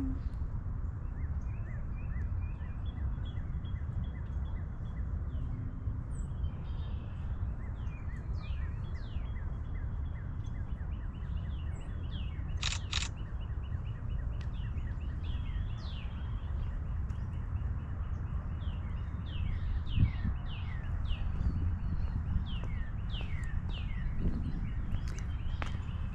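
Many small birds chirping, a stream of short, quick downward-sliding chirps that grows busier in the second half, over a steady low rumble.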